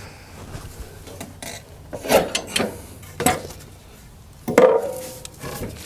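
Sawn cedar timbers knocked and set down as they are handled: four sharp wooden knocks, the loudest one about four and a half seconds in with a short ring.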